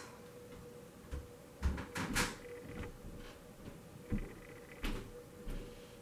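Handling noises as a plastic cup of acrylic pour paint is turned over onto a light switch plate on cardboard and dragged across it: a handful of soft, short knocks and rubs.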